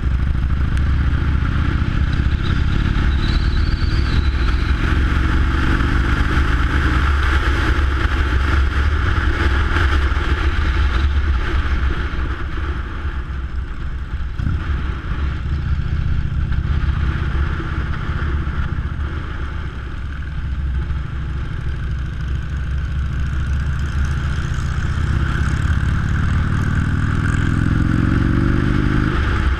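Motorcycle engine running steadily while riding, heard from on the bike with steady wind rush over the microphone. The engine pitch climbs near the end as the bike accelerates.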